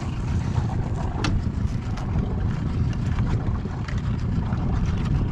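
Gale-force wind buffeting the microphone: a loud, gusty low rumble, with a few faint clicks over it.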